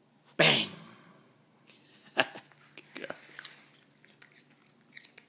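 A short, loud breathy puff like a sneeze about half a second in, then small clicks and scuffles as a Yorkshire terrier rolls and moves about on a foam floor mat.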